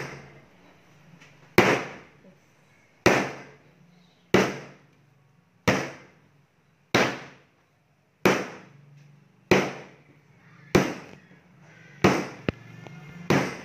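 A ball of bluder dough being slammed by hand onto a wooden worktable, about eleven heavy slaps at a steady pace of roughly one every 1.3 seconds. This is the slap-and-fold kneading that develops the gluten until the dough turns smooth and elastic.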